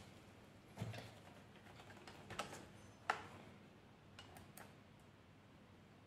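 Faint, scattered clicks and taps, about five over several seconds, the sharpest about three seconds in, from the RC car's remote control transmitter being handled and switched on.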